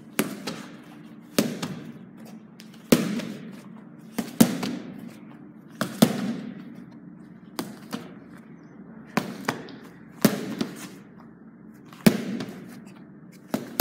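A child's gloved punches smacking into handheld focus mitts, alternating left and right jab and cross, about a dozen sharp slaps one to two seconds apart, each followed by a short echo.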